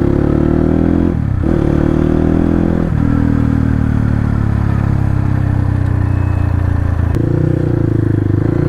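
Motorcycle engine accelerating through the gears, shifting up about a second in and again near three seconds. It then runs on at a steady, slowly changing pitch until its note jumps up about seven seconds in.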